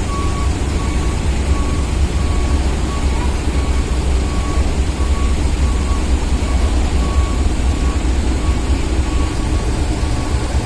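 Heavy vehicle and ship engines running with a steady low rumble during vehicle unloading from a car ferry, with an electronic warning beeper sounding over it: a short high beep repeating about one and a half times a second.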